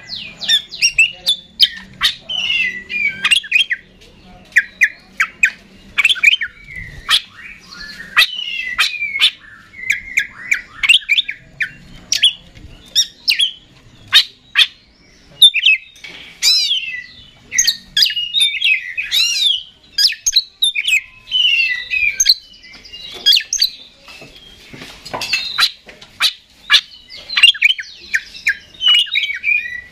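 Oriental magpie-robin (kacer) singing almost without pause: a fast, varied run of short whistles, sweeping notes and sharp clicks, broken by only brief gaps.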